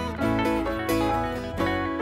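Instrumental passage of a song: guitars plucking and strumming chords over a steady bass line.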